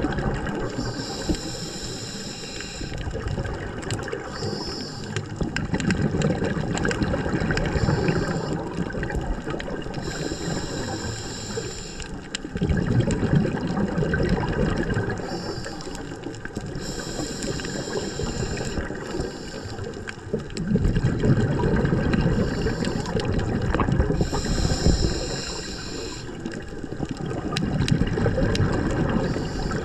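Scuba diver's regulator breathing underwater: slow breaths about every seven seconds, each a hiss of air through the regulator on the inhale followed by a longer gush of bubbling exhaust, about four breaths in all.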